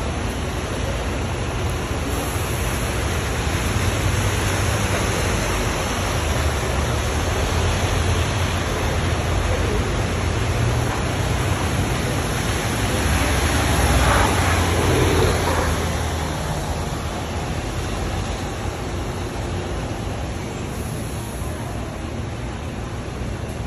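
Diesel double-decker bus driving slowly past on wet pavement, its engine rumble and tyre hiss growing to a peak about two-thirds of the way through, then fading. A steady loud hiss runs underneath.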